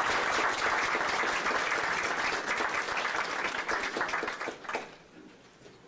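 Audience applauding, fading out about five seconds in.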